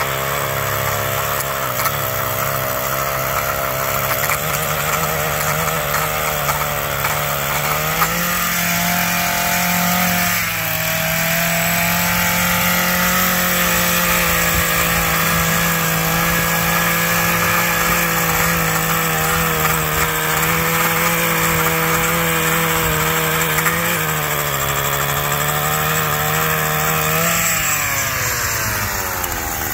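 Small two-stroke engine of a handheld gas stick edger running at high throttle while its blade cuts along a concrete driveway edge. The engine note steps up about eight seconds in, holds steady, dips briefly near the end and then falls away as the throttle is let off.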